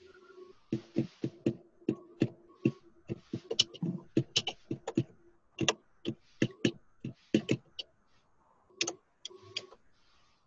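A run of irregular sharp clicks and taps, about two or three a second, with a faint steady hum underneath.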